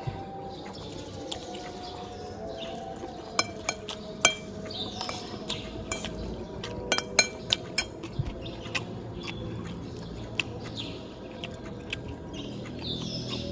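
Cutlery clinking against a plate and glassware while eating: a scattered run of sharp clinks, some ringing briefly, busiest in the middle. Birds chirp faintly in the background.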